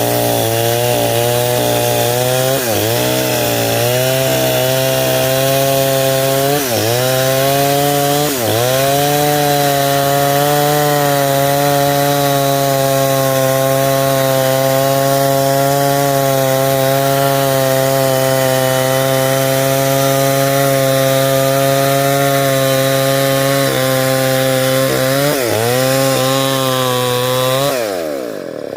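Stihl 070 two-stroke chainsaw running at high revs while ripping a log lengthwise into beams. Its pitch dips briefly a few times as the load changes, and near the end the revs drop sharply.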